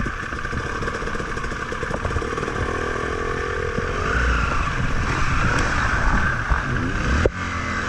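Off-road motorcycle engines running at low speed, the KTM 350 EXC-F's single-cylinder four-stroke among them, with the pitch rising and falling as the throttle is worked on a rocky climb.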